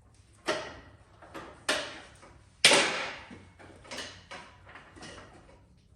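Irregular knocks, clicks and rattles of motorcycle parts being handled as a clutch cable is worked through the frame, about half a dozen strokes with the loudest knock about two and a half seconds in.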